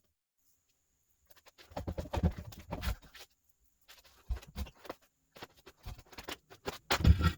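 Irregular clatter and knocks in short clusters, starting about a second in, from hands-on work with hardware.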